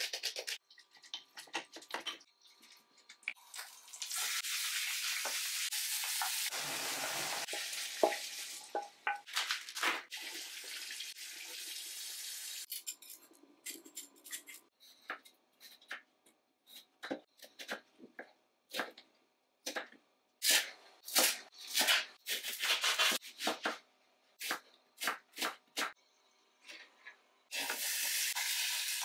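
Kitchen cooking sounds: a tap runs for a few seconds, then a long run of irregular short clicks and knocks of utensils and dishes. Near the end a steady sizzle of food frying in a pan begins.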